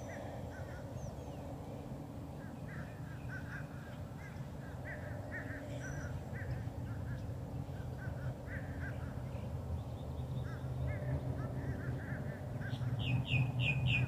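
Birds calling outdoors: a steady scatter of short chirping calls, with a quick run of four louder, higher calls near the end. Under them runs a low steady hum that grows louder in the second half.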